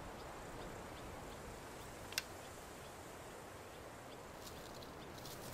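Quiet woodland ambience: a low steady hiss with faint, evenly spaced high chirps, and one sharp click about two seconds in.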